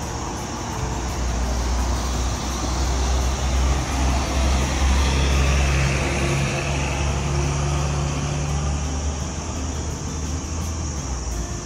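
Road traffic: a vehicle passing, its engine and tyre noise swelling to a peak about halfway through and then fading, over a steady low rumble.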